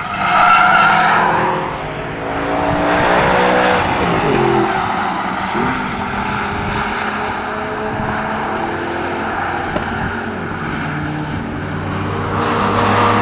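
Audi R8's 4.2-litre V8 FSI engine running hard on a race track: loudest about a second in, the revs dropping around four seconds in, then steady running before the revs climb and grow louder near the end.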